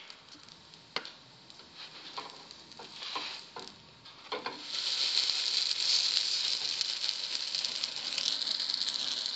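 Stuffed flatbread (rghaif) cooking in a nonstick frying pan: a few light taps and scrapes of a spatula against the pan, then about four and a half seconds in a steady sizzle starts as the bread is turned onto its uncooked side.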